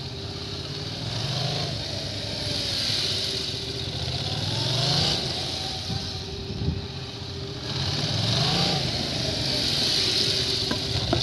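Yamaha MT-07's parallel-twin engine revving up and falling back again and again, a rise every two seconds or so, as the motorcycle is ridden through tight turns.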